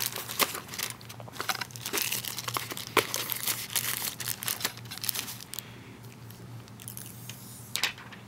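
Paper packing in the phone box crinkling and rustling as it is handled, a busy run of irregular crinkles for about the first five seconds, then quieter, with one more brief rustle near the end.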